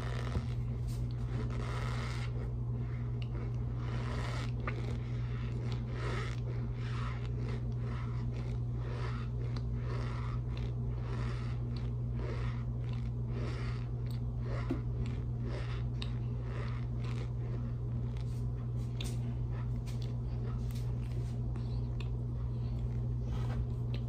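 A mouthful of raw cornstarch being chewed: a regular run of chewing sounds, about two a second, over a steady low hum.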